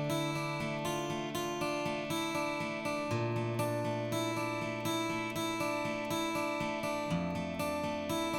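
Background music: acoustic guitar strumming chords at a steady rhythm, the chord changing about three seconds in and again near the end.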